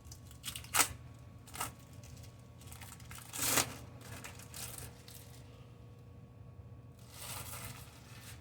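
Kitchen handling noises: a few light clicks and knocks, a louder short rustling scrape about three and a half seconds in, and a softer rustle near the end.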